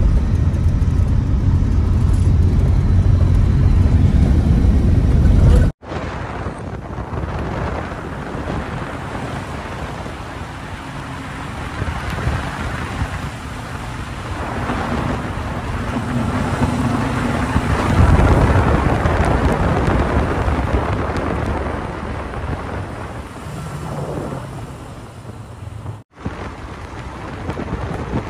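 Car on the move: a heavy low engine and tyre rumble for the first few seconds, then a steady rushing road and wind noise, broken by two abrupt cuts between clips.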